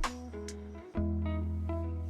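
Background music: guitar chords over a steady bass line, with a couple of drum hits in the first half second.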